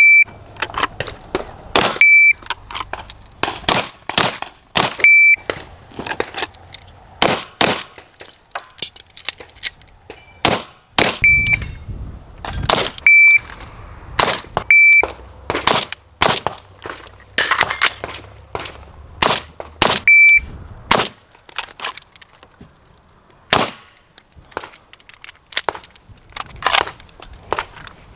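Gunshots in quick strings and single shots, many in a row with short gaps between, together with the short high start beep of an electronic shot timer about seven times.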